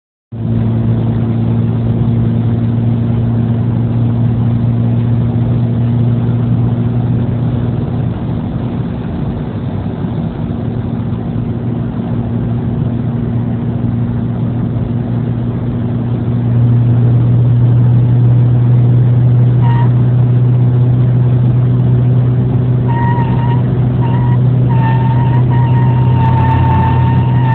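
Honda CR-Z at over 90 mph: a steady low engine drone over road noise, joined by a high-pitched screaming whine. The whine flicks on briefly about two-thirds of the way through, then cuts in and out a few times before holding steady near the end; its cause is unknown to the owner.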